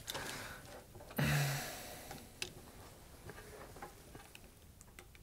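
Faint, scattered small clicks and ticks of fingers unscrewing the speaker binding posts and their caps on a TAD M1000 power amplifier, with a brief rustle of handling about a second in.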